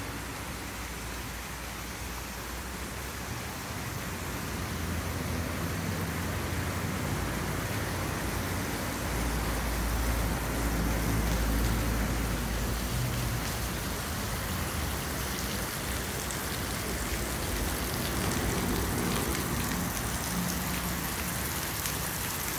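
Steady rushing noise of water, with a low rumble that swells for a few seconds in the middle.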